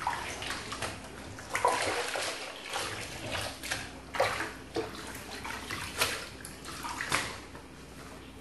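Banana leaves being washed by hand in water in a stainless steel sink: irregular sloshing and splashing as the leaves are rubbed and swished, with a few louder splashes.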